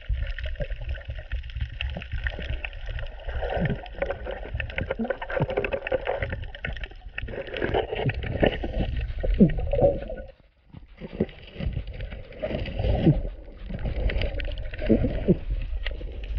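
Muffled underwater sound of water moving and bubbling, heard through an action camera held under the surface over a coral reef, with a low rumble under short gurgling glides. It cuts out briefly about ten seconds in.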